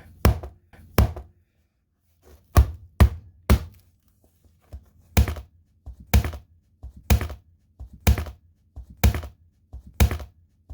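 A hatchet chopping into a tablet again and again: about a dozen sharp blows at uneven intervals, some in quick pairs or threes, as the tablet is hacked open.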